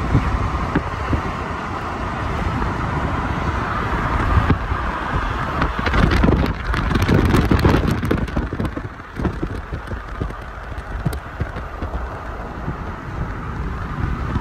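Wind and road noise from a moving car, with wind buffeting the microphone, strongest for a couple of seconds around the middle.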